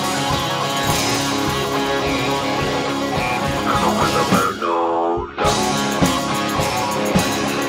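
Live rock band with electric guitars, bass guitar and drums playing an instrumental passage. About four and a half seconds in the band stops for roughly a second while one note slides in pitch, then the full band comes back in.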